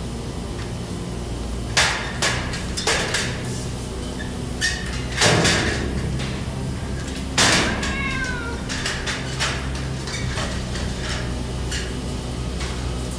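Metal knocks and clanks from an aluminium ladder and a floor hatch being handled, several sharp strikes in the first half. About eight seconds in comes a short falling squeal, over a steady low hum.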